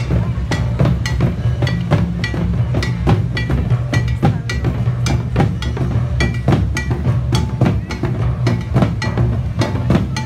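Live percussion ensemble drumming on large cylindrical drums, a fast, even rhythm of hard strikes over a steady low bass.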